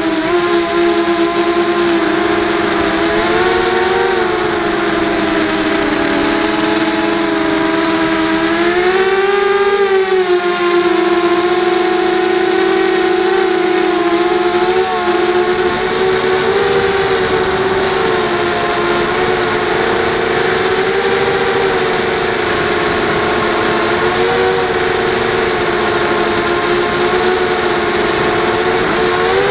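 Racing quadcopter's brushless motors and propellers whining steadily, heard close from its onboard camera. The pitch swells up and falls back about nine seconds in, with smaller rises around four and fifteen seconds as the throttle changes.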